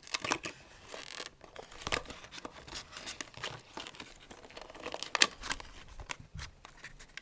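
Plastic earphone packaging and its cardboard box being handled: irregular crinkling and sharp clicks of the plastic as it is worked out of the box, with louder snaps about two seconds in and about five seconds in.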